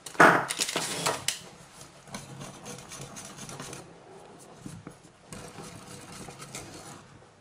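Wire whisk stirring and scraping thick chocolate pudding in a stainless steel pot, a rasping rub that is loudest in the first second or so and then goes on more quietly.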